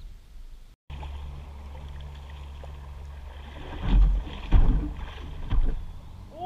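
Steady low hum of a boat motor, with three heavy thumps about halfway through.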